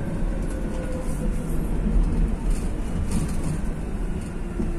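Metro train running through a tunnel, heard from inside the carriage: a steady low rumble, with a cluster of sharp clicks and squeaks from the wheels on the rails about midway.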